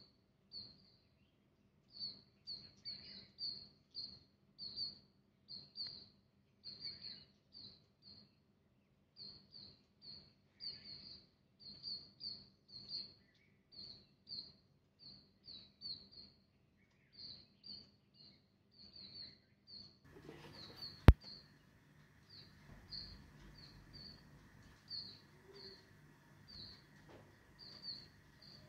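Short, high chirps at one steady pitch, repeated about twice a second, from a bird or insect in the background. A single sharp click sounds about twenty seconds in.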